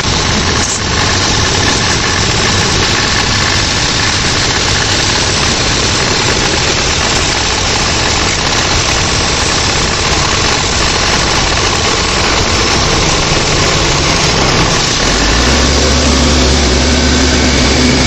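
A compact tractor's engine running under a steady, even rushing noise while an almond cart is unloaded. About fifteen seconds in a deeper steady hum sets in and the sound gets a little louder.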